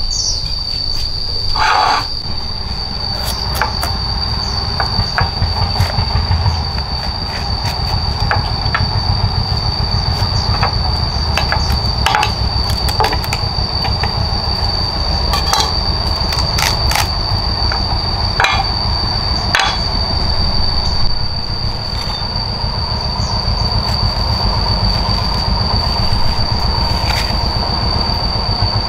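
A steady high-pitched insect drone over a low rumble, with scattered sharp clicks and knocks.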